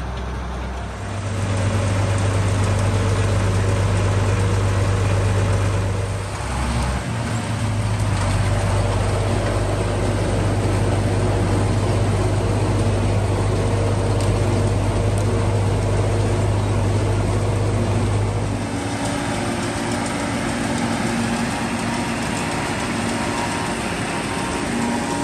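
Diesel engine of the farm machinery running hard as forage chopping begins, with a steady deep drone. It comes up in level about a second in and dips briefly about six seconds in. Near the end the deepest drone drops away and a noisier, higher mechanical whir takes over.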